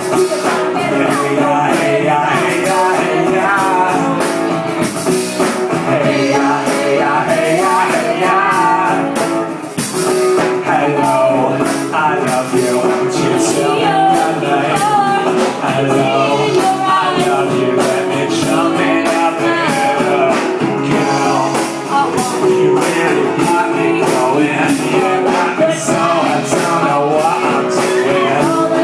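Live rock music: electric guitar and band playing a steady groove with regular drum and cymbal hits.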